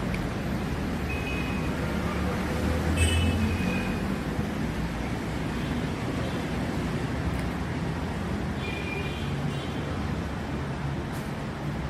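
Steady road traffic noise, with a louder low rumble of a passing vehicle about three seconds in and a few short high-pitched tones.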